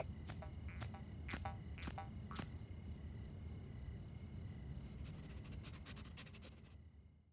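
Crickets chirping steadily in a night-time ambience over a low rumble, with a few soft taps about half a second apart in the first couple of seconds. The ambience fades out near the end.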